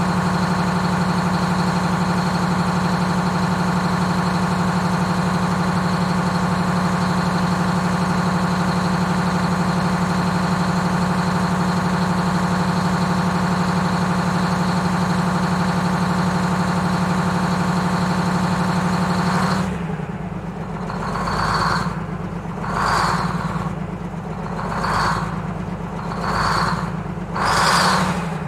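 The bus's Detroit Diesel 6-71 two-stroke diesel running steadily at one speed. About two-thirds of the way through it changes abruptly to a lower running sound that rises and falls roughly every second and a half.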